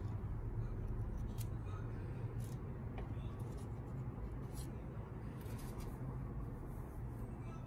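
Faint, scattered scratchy rustles of stiff Calathea 'Fusion White' leaves brushed and handled by hand, over a steady low hum.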